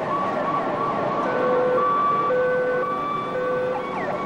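Emergency vehicle siren over city street traffic noise: a fast yelping siren changes about a second in to slower tones stepping back and forth between two pitches.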